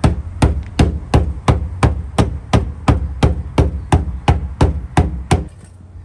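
A hammer striking the steel lip inside a car's wheel-arch fender, about sixteen even blows at roughly three a second that stop about five and a half seconds in. The blows are folding the fender lip back so new wheels will clear it.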